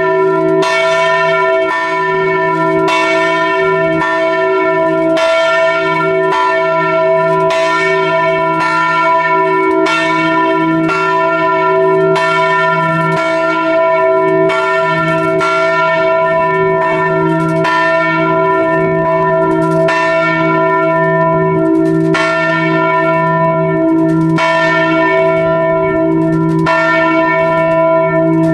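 A large bronze church bell swinging in full peal, heard up close in the bell chamber. Its clapper strikes about once a second, and the bell's deep hum and bright overtones ring on between the strokes.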